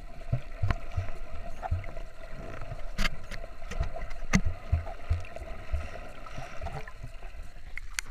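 Muffled underwater sound picked up by an action camera held just below the surface: irregular low thumps and knocks of water against its waterproof housing, a few sharp clicks, and a faint steady hum underneath.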